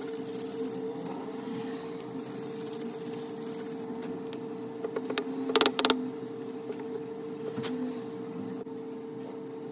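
A steel knife blank handled and shifted on a wooden workbench board: light rubbing, then a quick cluster of sharp clicks about halfway through, over a steady low hum.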